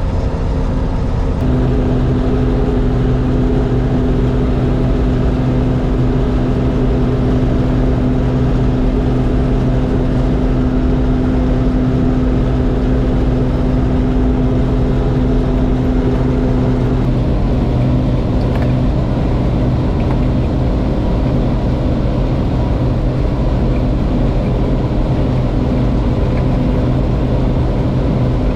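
John Deere 4400 combine's engine running steadily as the combine travels down the road, a constant drone whose tone shifts about a second and a half in and again about two-thirds of the way through.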